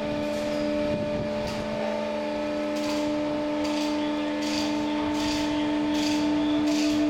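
Davit winch hoisting an enclosed tender/lifeboat, with a steady mechanical hum on one fixed pitch. From about three seconds in, short high ticks repeat a little more than once a second.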